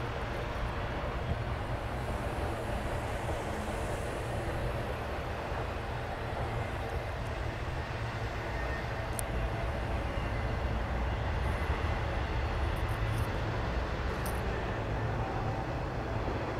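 CN freight train's container cars rolling past, a steady low rumble of wheels on rail, with a few faint high ticks partway through.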